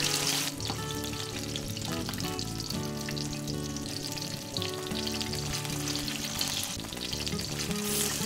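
Whole koi (climbing perch) rubbed with turmeric sizzling as they shallow-fry in hot oil in a wok, with a metal spatula turning the fish partway through.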